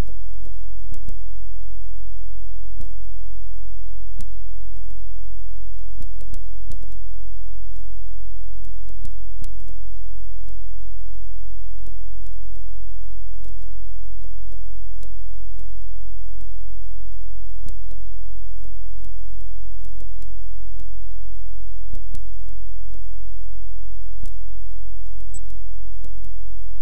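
Loud, steady low electrical hum with faint irregular clicks scattered through it.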